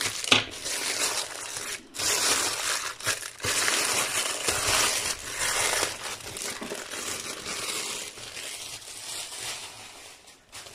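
Plastic mailer bag and inner plastic packaging crinkling and rustling as they are pulled apart and the contents taken out, in loud repeated surges for about six seconds, then quieter near the end.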